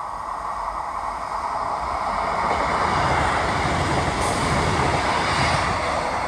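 A diesel multiple unit approaching and passing close by. Its engine and wheel-on-rail noise swell from about two seconds in, are loudest around the middle, then ease off.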